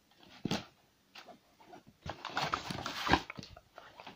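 Cardboard mailer being cut and torn open by hand: a short scrape about half a second in, then a stretch of tearing and rustling cardboard, loudest about three seconds in.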